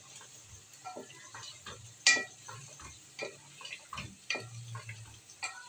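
Wooden spoon stirring chicken in masala in a metal pot, knocking and scraping against the pot in irregular clicks, with one louder knock about two seconds in, as the chicken is fried down (bhuna).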